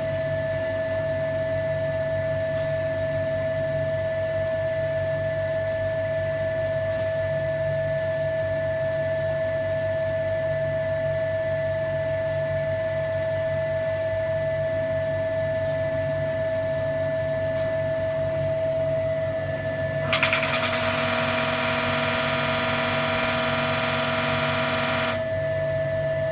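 Vacuum pump running steadily, drawing the bag down for resin infusion: a low hum with a steady high-pitched whine. A hiss joins about twenty seconds in and cuts off about five seconds later.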